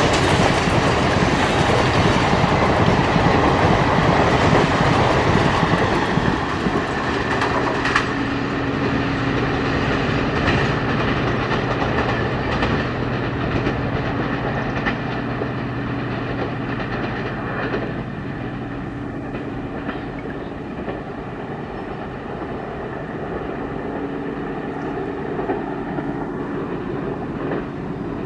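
Passenger train's coaches rolling past on the rails, loud at first and growing fainter as the train moves away.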